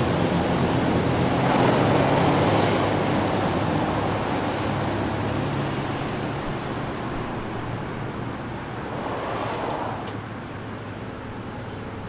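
Cars passing on a road, with tyre and engine noise. One vehicle swells up about two seconds in and slowly fades away, and a fainter one passes about nine seconds in.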